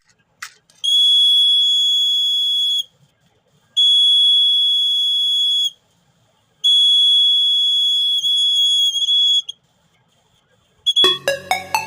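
Piezo buzzer of a homemade IR-sensor fire alarm sounding a steady high-pitched tone three times, each lasting about two to three seconds with short gaps between: the alarm switching on as a flame comes near the sensor and off as it is moved away. A click comes just before the first tone.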